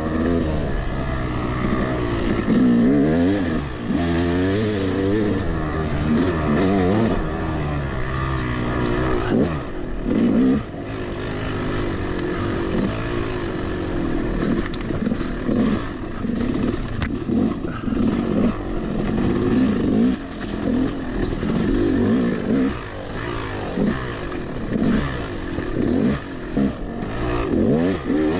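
Yamaha YZ250 two-stroke single-cylinder dirt bike engine revving up and down over and over as it is ridden through a muddy trail, heard from the bike itself. The owner says the bike has a roached clutch and a worn top end but still runs.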